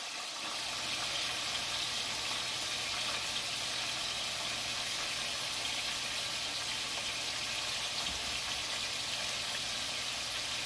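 Cut potatoes deep-frying in a pot of hot oil: a steady, even sizzle.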